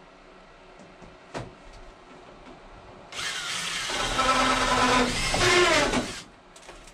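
Power drill running for about three seconds, pre-drilling a pilot hole through the aluminum wall cladding for a truss head screw, its motor whine rising and wavering as the bit cuts. A single faint click comes shortly before.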